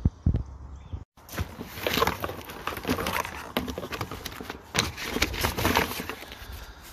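A couple of dull knocks, then after a brief break a hand rummages through a cardboard kit box, giving irregular rustling and crackling of paper, cardboard and plastic wiring conduit.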